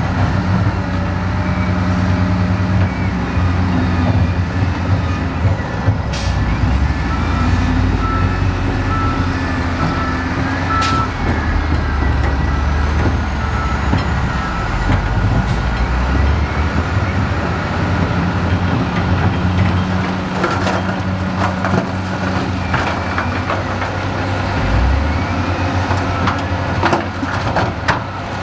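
Heavy diesel construction machine running steadily under load, with a short stretch of repeating beeps partway through and scattered knocks and clanks near the end.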